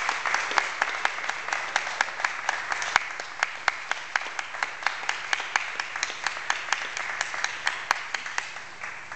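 A small audience applauding, with separate hand claps standing out; the applause slowly dies away near the end.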